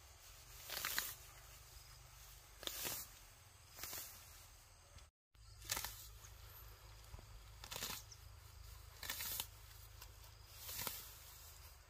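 Long grass and weeds being torn up by hand, each pull a short rustling rip, repeated about six or seven times.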